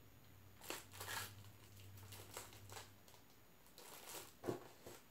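Faint handling noise of hard plastic graded-comic slabs: a handful of short rustles and clicks as the cased books are turned over and lifted, the sharpest one near the end.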